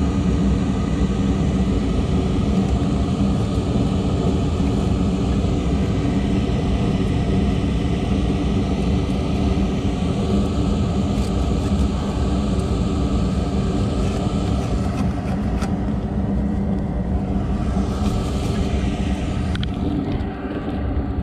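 Gas package unit running with its newly replaced induced draft motor: a steady mechanical hum with several steady tones, a little quieter near the end.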